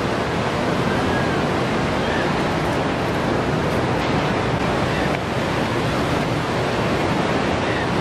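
Surf washing over a rocky shore, a steady rushing noise.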